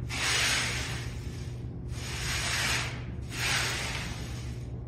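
Exercise sliders swishing across a tile floor in repeated strokes, about one every second and a half, as the legs slide out into a split and back together.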